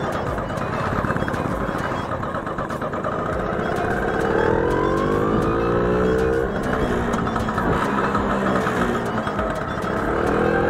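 Bajaj Super scooter's two-stroke engine pulling under way with road and wind noise. Its pitch climbs from about four seconds in, dips about six and a half seconds in, then climbs again near the end.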